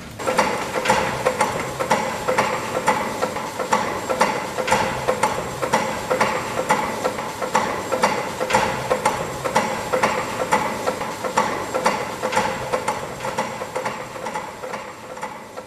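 Small steam barring engine turning the main mill engine over to set its pistons in position: a regular mechanical clatter of knocks, about two a second, over a steady hum.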